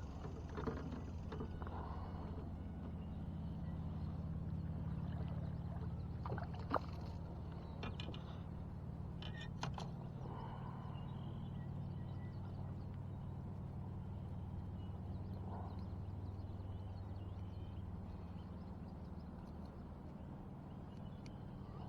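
Small boat's motor running steadily with a low, even hum, with a few light clicks in the first half.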